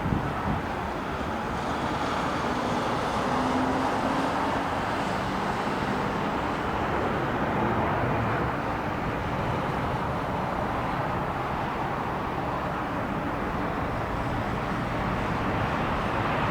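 Jet airliner engines, a steady rushing noise with a faint low hum that sinks slightly a few seconds in.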